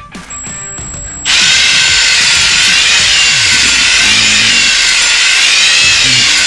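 Drill spinning a ball hone inside a Ford Focus engine's cylinder, honing the bore for the re-ring. It starts about a second in and runs steadily and loudly, its whine wavering slightly in pitch.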